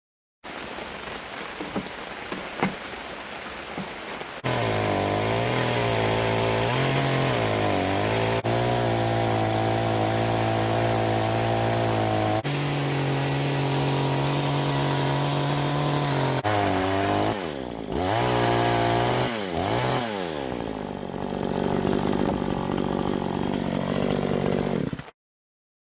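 Budget chainsaw in a homemade milling jig, running under load as it rips through an oak log. Its engine note holds steady for stretches, then dips and climbs again as the revs change. It starts loud after a few seconds of quieter sound with a few clicks.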